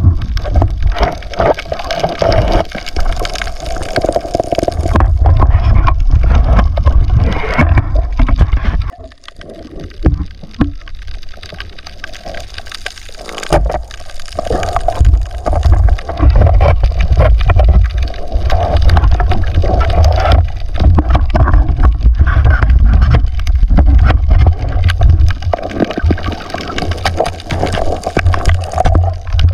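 Water noise around a camera held in shallow sea, with a heavy low rumble. It drops away for about four seconds past the middle, then returns.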